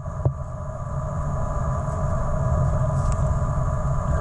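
Steady electronic whine, several fixed tones at once, over a low rumble: interference from a GoPro on a Karma Grip gimbal spoiling the camera's audio. A small tick comes about a quarter of a second in.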